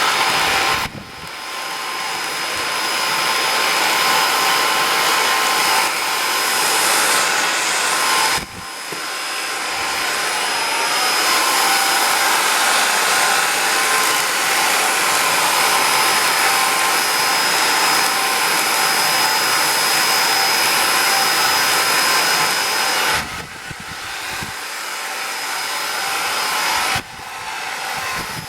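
Xiaomi vacuum cleaner running with a steady rushing of air and a high whine. Its sound drops suddenly about a second in, again near eight seconds and twice near the end, building back up gradually each time.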